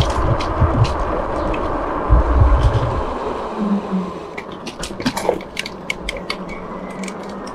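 Riding noise from a fat-tyre electric bike rolling on a concrete street: steady tyre and wind noise, with low wind rumble on the microphone for the first three seconds. After that it is quieter, with irregular clicks and rattles.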